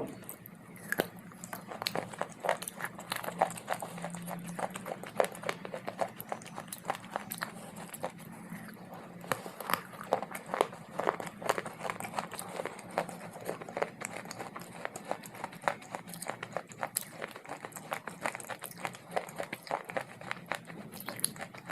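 Close-up crunching and chewing of dry baked clay: a steady run of sharp, brittle crunches several times a second, over a faint low hum.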